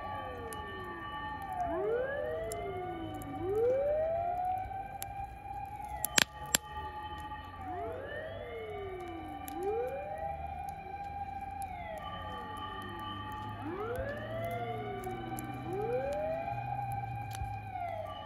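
Several emergency-vehicle sirens wailing at once, out of step with each other, each rising and falling about every six seconds. They are fire engines, police cars and ambulances responding to a mountain wildfire. A couple of sharp pops come about six seconds in.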